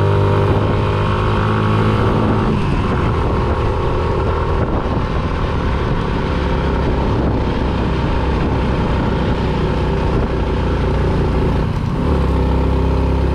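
Motorcycle engine running while riding. A steady engine note gives way to a rougher, noisier sound about two and a half seconds in, then settles into a lower steady note near the end.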